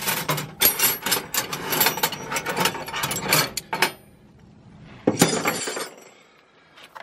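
Steel hand wrenches clinking and clattering against each other and the metal toolbox drawer as they are handled. There is a dense run of clinks for about four seconds, then one more short clatter about a second later.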